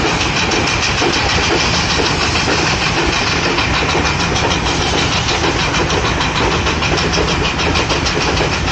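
Antique steam traction engine working under load as it pulls a weight-transfer sled, its exhaust beating at a quick, even rhythm over a steady rumble.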